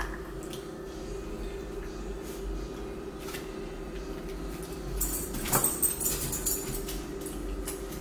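Drinking from a large plastic jug: cap handling, swallowing, and crinkly plastic handling noises that grow louder about five seconds in, over a steady hum.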